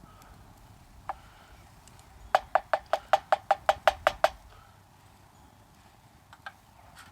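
A quick run of about ten sharp clicks, roughly five a second, lasting about two seconds.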